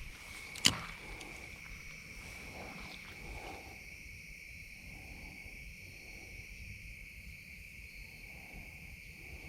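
A steady, high-pitched chorus of insects trilling, with one sharp click a little under a second in.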